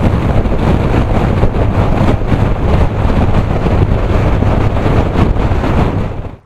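Kawasaki Z1000SX motorcycle on the move as picked up by an SJ6 action camera's built-in microphone: heavy wind rush over the mic with the bike's low engine drone underneath. It cuts off abruptly near the end.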